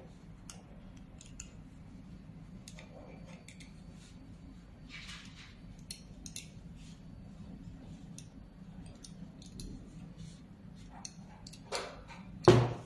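Small metal clicks and taps as the laser's metal lamp housing and its parts are handled on a workbench, over a steady low hum. Two louder knocks come near the end, the second the loudest.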